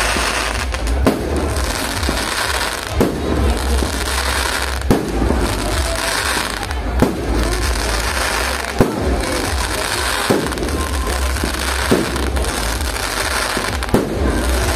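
Fireworks display: aerial shells bursting with sharp bangs about every two seconds, eight in all, over a steady din of noise between them.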